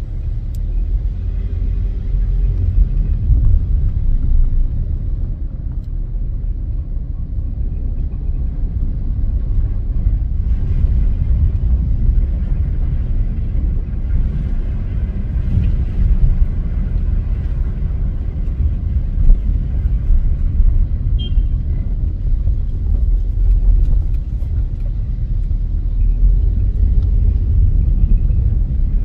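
A car driving, heard as a steady low rumble of engine and road noise.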